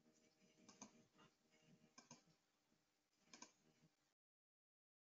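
Near silence with a few faint clicks in small clusters, then the sound cuts off to dead silence about four seconds in.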